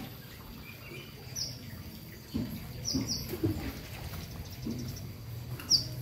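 Small birds chirping: a few short, high chirps that fall in pitch, once early, twice close together in the middle and loudest near the end, over a low, indistinct background.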